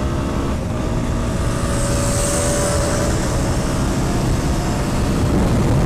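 Heavy wind rush buffeting the microphone over a Bajaj Pulsar NS160's single-cylinder engine running hard at full throttle, the motorcycle accelerating at highway speed.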